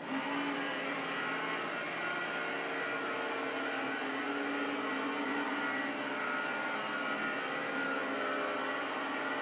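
Small metal lathe running steadily with a whine from its motor and gears, while a center drill cuts into the end of a spinning brass bar.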